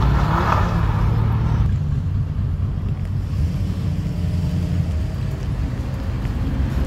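Car engines running with a steady deep rumble as cars drive off, with a louder surge of engine noise in the first second and a half.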